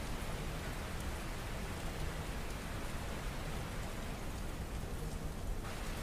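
Recorded rain: a steady, even hiss of rain falling on a surface, used as the audible cover track for a subliminal.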